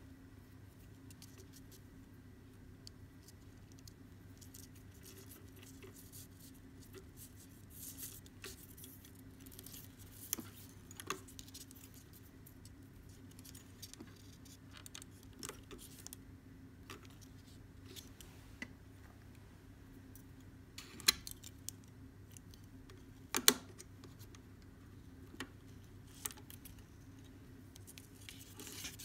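Macrame cord being handled and knotted by hand: faint rustling and small taps, with two sharper clicks about twenty seconds in, over a steady low hum.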